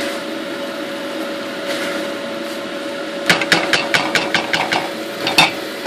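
Spatula stirring cauliflower in a stainless steel pot, then a quick run of sharp taps on the pot about three seconds in, and one more tap a couple of seconds later. A steady hum with a held tone runs underneath.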